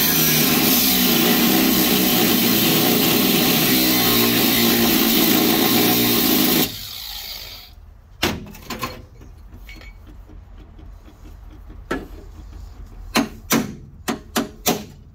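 Cordless angle grinder cutting into rusted steel with a steady whine, switched off after about seven seconds and spinning down. Then a few sharp hammer taps, coming faster near the end.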